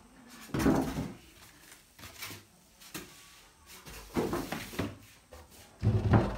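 Cardboard box and packaging handled during an unboxing: three bursts of scraping and rustling, with knocks.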